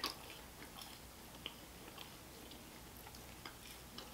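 Close-up mouth sounds of a person chewing a bite of breadstick, faint, with a few small crunches now and then.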